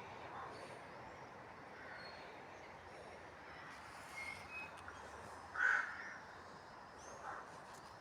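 Outdoor background with scattered bird calls, one louder call a little past the middle.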